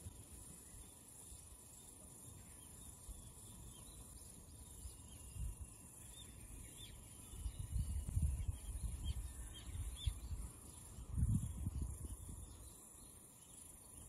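Wind buffeting the microphone in low rumbling gusts, strongest a little past halfway and again near the end, over faint short bird chirps and a steady high hiss.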